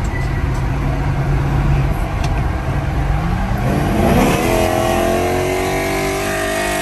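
Dodge Charger SRT's V8 heard from inside the cabin, cruising steadily, then about three and a half seconds in the revs sweep up fast under hard acceleration and hold high, climbing slowly to the end.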